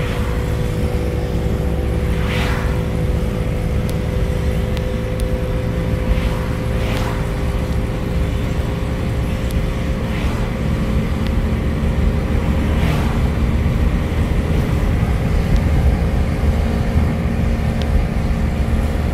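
Car engine hum and road rumble heard inside the cabin while cruising at about 50 mph, steady throughout, with a few faint brief swells.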